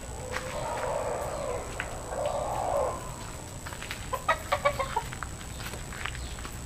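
Gamecocks clucking in their pens, with a quick run of about six short clucks around four seconds in. A rough, raspy sound comes before it in the first few seconds.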